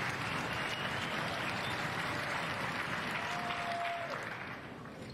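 Tennis crowd applauding a point in an indoor arena, steady and then dying away near the end.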